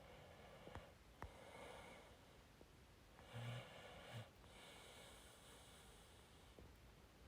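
Near silence: room tone with a few faint clicks and a soft, short breath-like sound about three and a half seconds in.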